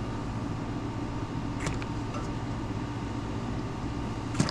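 A steady low mechanical hum, with two short clicks: one about one and a half seconds in and one near the end.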